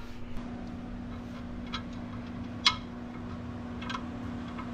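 Wrench working on the torque converter bolts at the flex plate: four short, sharp metallic clicks, roughly one a second, over a faint steady hum.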